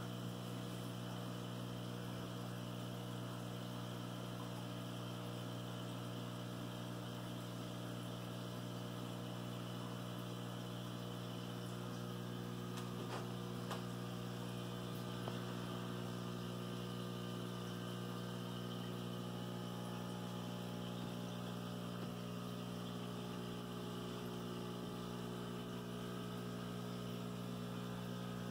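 Steady electrical hum of running aquarium equipment, a low even drone, with a couple of faint ticks around the middle.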